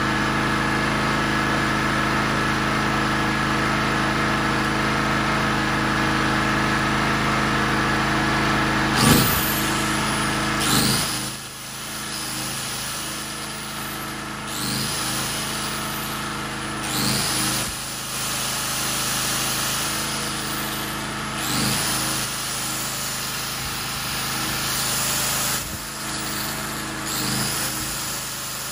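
Portable generator engine running steadily, then, about nine seconds in, a plugged-in Milwaukee angle grinder switched on and off repeatedly, spinning up and winding down several times every two or three seconds.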